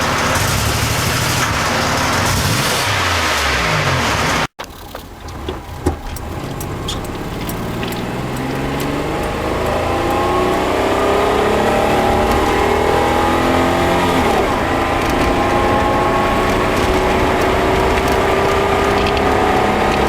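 Buick Century's 3.3L V6 engine running, with the note rising and falling for the first few seconds. After an abrupt cut there is a single sharp pop, then the engine note climbs in pitch in stages as the car accelerates. The engine has a misfire, intake backfire and loss of power.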